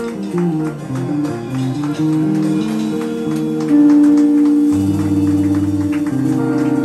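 Electric guitar played live: a quick descending run of single notes, then ringing held chords with a fast, even pulse in the level from about five seconds in, the song's final chords. Light drums play underneath.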